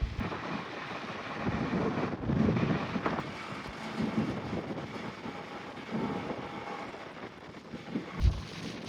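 Wind gusting across the microphone on a ferry under way in strong wind, over the steady noise of the ship.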